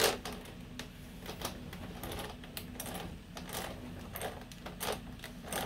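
Pliers working a stiff fastener on a motorcycle's clutch lever bracket: irregular sharp metallic clicks and scrapes of the steel jaws on the metal parts.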